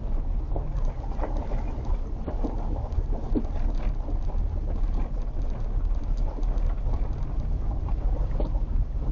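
Car driving slowly, a steady low rumble of engine and tyres with scattered small ticks and crackles.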